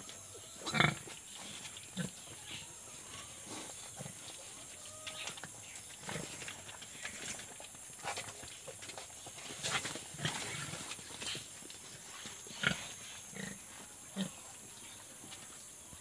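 A nursing sow giving short low grunts about once a second or two while her litter of piglets suckles.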